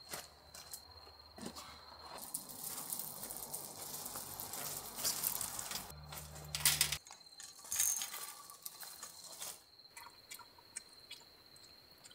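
Camping gear being handled: rustling with scattered clicks and clinks, a longer stretch of rustling in the first half. A thin steady insect trill runs underneath.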